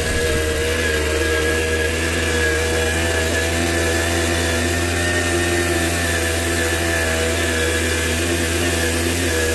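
Tomos CTX 80 moped's small two-stroke engine running steadily at an even speed while riding, its tone holding level.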